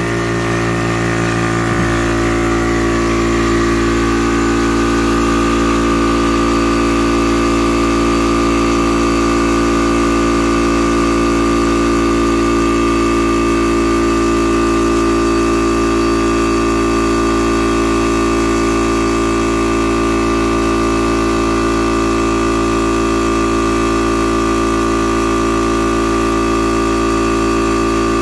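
Yong Heng 300-bar electric high-pressure PCP air compressor running steadily, pumping an air rifle's air cylinder from 200 up toward 250 bar. Its tone shifts slightly about two seconds in, then holds steady.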